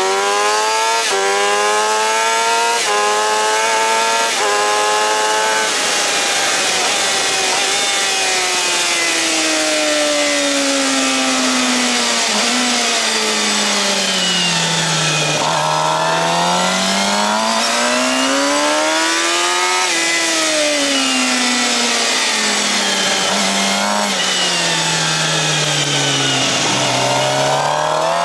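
Suzuki GSX-R750's inline-four engine with a Yoshimura R-11 slip-on exhaust, heard from onboard at racing speed, with wind rushing over the microphone. It accelerates hard through four quick upshifts, then the revs fall slowly with a downshift as it slows into a corner, and it revs up and down again through the following bends.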